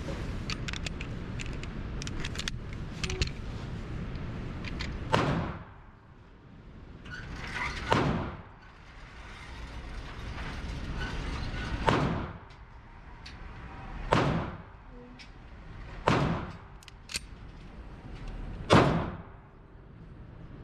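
Gunshots echoing in an indoor shooting range: about six sharp reports a few seconds apart, each followed by the recording's level dropping and slowly recovering. Before the first shot there is a steadier mechanical running with small clicks while the target carrier runs the paper target downrange.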